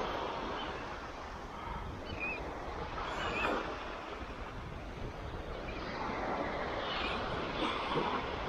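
Small waves breaking and washing up a sandy beach, the wash swelling about three seconds in and again near the end, with wind on the microphone.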